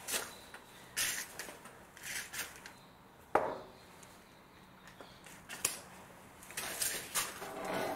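Metal hand tools clinking and scraping at the suspension while a 21 mm socket is set up on the ball joint nut. The sounds come as short rasping bursts about once a second, with one sharp metallic click about three and a half seconds in.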